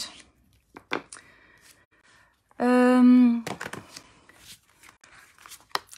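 A woman's voice holding a single flat 'uhhh' for just under a second midway, among a few light taps and rustles of cardstock and patterned paper being handled on a craft mat.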